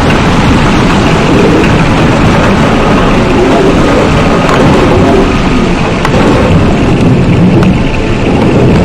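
Loud, dense rumbling noise with no clear pitch, heaviest in the low end and steady throughout, with a few faint clicks: a layered sound-effect texture in an experimental electronic composition.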